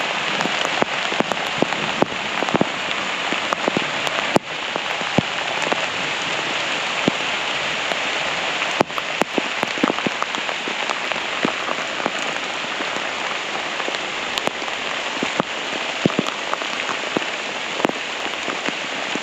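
Heavy downpour, with drops striking the camera close up as many sharp ticks over a steady hiss.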